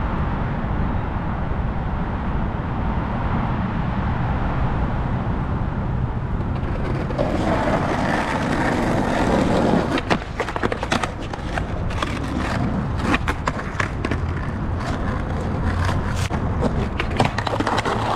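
Skateboard rolling, its wheels giving a steady rough rumble. From about ten seconds in, a string of sharp clacks and knocks follows as the board and trucks hit the ground and curb.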